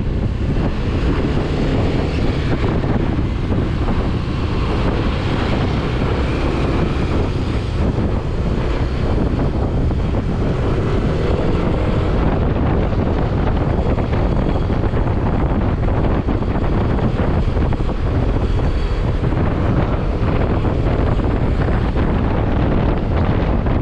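Wind rushing over the camera microphone of a moving motorcycle, steady and loud and heaviest in the low end, with the motorcycle running underneath.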